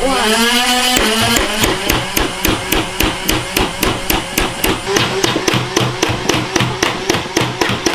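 Nerf Rival Kaos motorized blaster firing full-auto. Its flywheels spin up, then foam balls are fired in a rapid, even rattle of about five shots a second over the steady hum of the motors.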